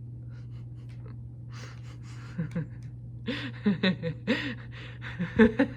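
A woman's breathy laughter and gasps, starting about one and a half seconds in and growing louder toward the end, over a steady low hum.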